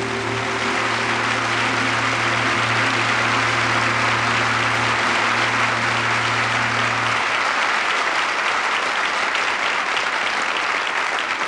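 Theatre audience applauding loudly at the end of a song. The accompaniment's last low chord is held underneath at first and stops about seven seconds in, leaving the applause alone.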